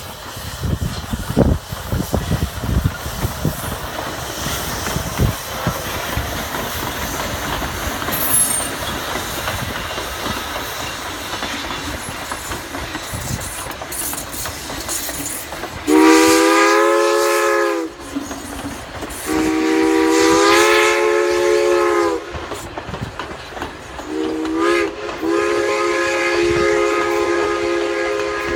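A steam train rolls past, the wheels of its passenger coaches rumbling and clicking over the rail joints. About halfway, the locomotive's chime steam whistle sounds four times, long, long, short, long: the standard signal for a grade crossing. Each blast is a chord that slides up slightly in pitch as it opens.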